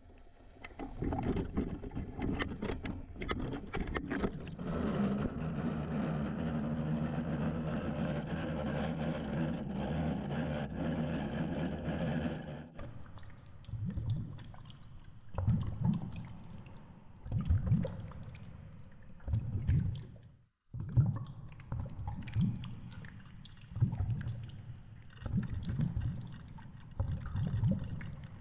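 Underwater sound picked up by a sinking camera in its housing. For about twelve seconds there is a steady mechanical hum with several fixed tones, which cuts off abruptly. After that, low irregular swells of water rush past the housing every couple of seconds.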